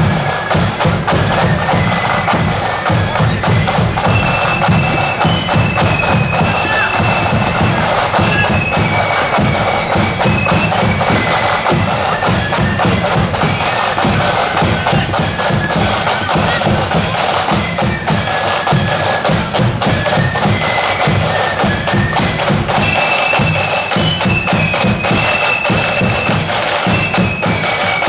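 Marching flute band playing a tune: a high flute melody over a steady beat of side drums.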